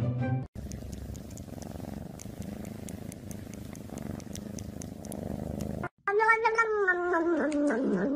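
House cat purring close to the microphone, a steady low rumble with a fine even pulse, for about five seconds. After a break about six seconds in, a long wavering pitched tone starts up.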